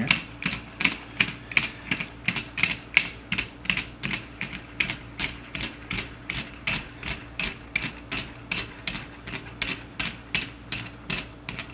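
Threaded aluminium spring collar being spun by hand down the threaded body of a Viking coilover shock, an even run of sharp metallic clicks, about three or four a second.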